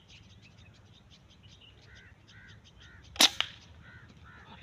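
A single sharp shot from the M22 about three-quarters of the way in, followed a fraction of a second later by a second, weaker crack. Birds call faintly and repeatedly underneath.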